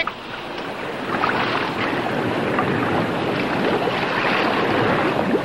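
Boat under way on open sea: a steady rush of water and wash against the hull, getting louder about a second in.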